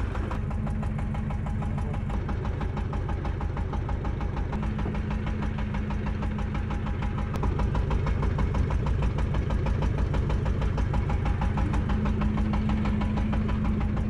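Small fishing boat's engine running steadily at idle with a fast, even knocking beat, getting a little louder about halfway through.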